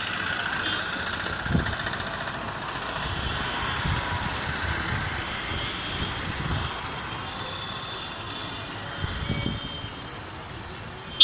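Street traffic: motor vehicle engines running, with a motorcycle and an auto-rickshaw passing by. A few soft low swells come through. It ends in a sudden sharp click.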